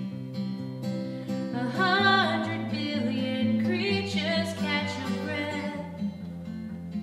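Worship song played on strummed acoustic guitar over a steady bass line, with a voice holding long, wavering notes about two seconds in and again about four seconds in.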